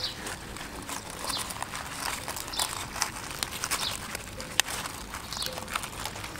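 A round bamboo stick pushed firmly along a featherback fish on a wooden board, squeezing the flesh out to make fish paste: soft scraping with frequent small clicks and taps. Birds chirp faintly in the background.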